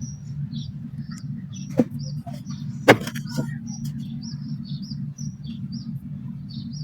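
Small birds chirping over and over, with a steady low hum underneath and two sharp clicks, about two and three seconds in.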